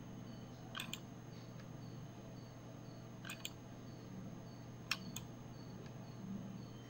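Faint computer mouse clicks, about five, a couple of them in quick pairs, over a low steady hum.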